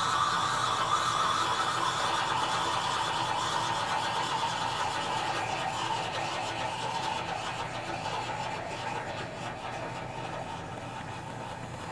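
Steady rushing hiss of a Bunsen burner flame heating a test tube inside a running fume hood. A higher note within the hiss sinks slowly in pitch, and the whole grows a little quieter towards the end.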